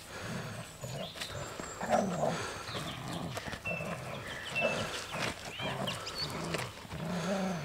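Hovawart dog growling in play while tugging on a toy: a run of low growls rising and falling every half second or so, with a louder one about two seconds in.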